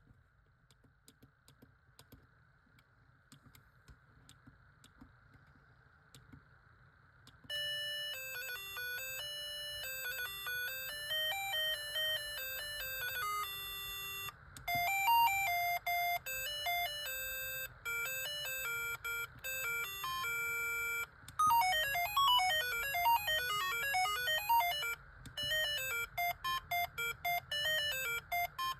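Siemens A55 mobile phone playing its ringtones through its loudspeaker, several different electronic tunes in turn, each cut off abruptly as the next begins. For about the first seven seconds there are only faint clicks before the first tune starts.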